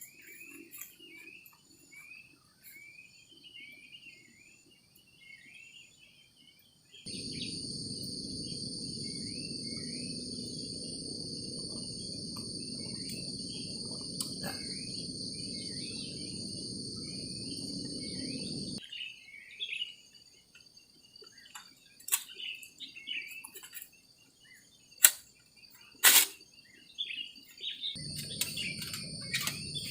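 Insects trilling in steady high bands, with many short chirping calls over them. A low rushing noise comes in about a quarter of the way in, stops suddenly about two-thirds of the way through and returns near the end. A few sharp knocks fall in the last third, the loudest two close together.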